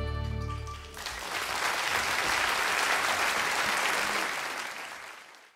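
A string band's final chord dies away, then an audience applauds for about four seconds before the sound fades out.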